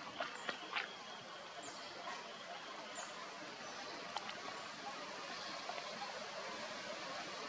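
Steady outdoor background hiss, with a few short sharp sounds in the first second and another about four seconds in.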